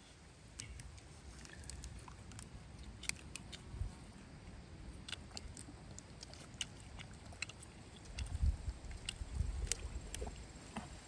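Scattered small clicks and taps of people eating by hand from plates and handling plastic water bottles, with a couple of low rumbles, the stronger one near the end.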